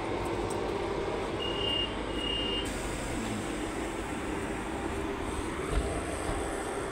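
Steady drone of city buses standing at a terminus, with two short high-pitched beeps about a second and a half in and a brief thud near the end.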